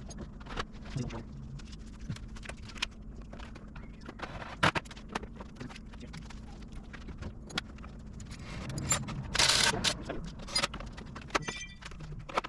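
Scattered clicks, knocks and rattles of hand tools and plastic body panels being handled while fitting new plastics to a motorcycle, with a longer scraping rustle about nine and a half seconds in.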